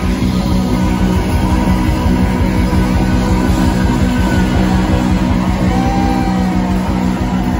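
Rock band playing live through a venue PA: electric guitar over bass and drums, loud and steady, heard from within the crowd.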